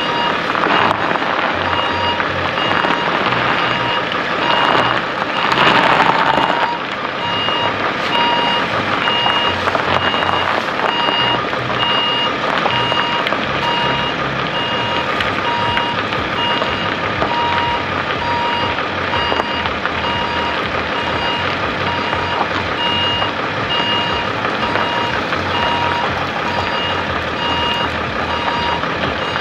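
Vehicle backup alarm beeping at an even pace, over a loud steady rushing background, with a louder burst of rushing noise about five to seven seconds in.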